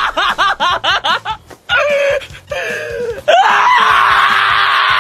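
Black-and-tan Shiba Inu screaming in protest while its claws are clipped. A quick string of shrill, yelping cries comes first, then two longer wails, and from about three seconds in one long, harsh scream held steady.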